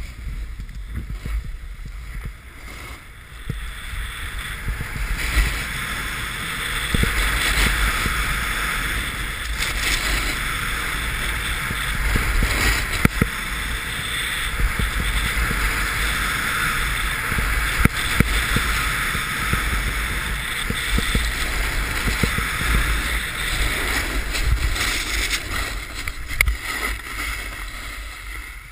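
Steady scraping hiss of edges sliding over packed snow on a downhill run, with wind rumbling on the microphone. It builds over the first few seconds, carries a few sharp scrapes, and drops away suddenly near the end as the riding stops.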